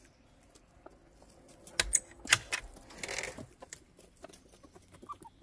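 Chickens moving about right next to the camera: a few sharp taps around the middle, the loudest sounds, followed by a brief scratchy rustle on the dry leaf litter. Faint soft clucks begin near the end.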